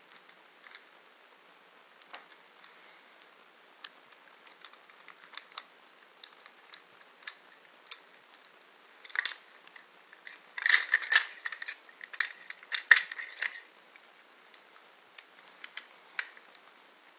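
Steel handcuffs being picked with handmade picks: scattered sharp metal clicks and small rattles, rising to a dense burst of loud clicking and clattering in the middle, then a few clicks again near the end.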